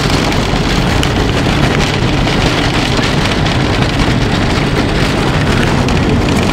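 Car being driven, heard from inside the cabin: a loud, steady rumble and rush of engine and road noise.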